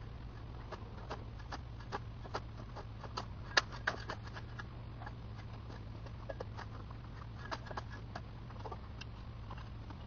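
Shovel and rake working loose dirt, played at fast-forward speed: a quick, irregular run of short scrapes and clicks over a low steady hum.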